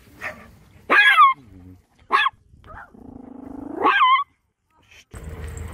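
A dog barking, sharp barks about a second in and just after two seconds, then a low growl that rises into a loud final bark near four seconds. A steady low hum comes in near the end.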